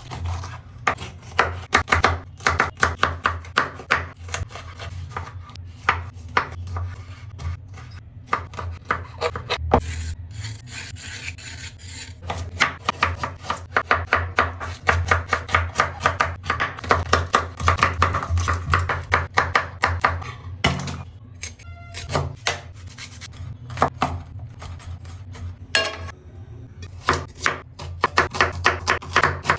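Knife chopping food on a cutting board in quick runs of sharp strikes, several a second, with short breaks between runs.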